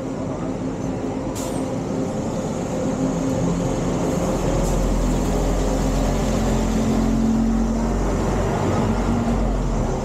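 City bus driving past close by: its engine hum and tyre rumble swell as it draws level and ease off near the end.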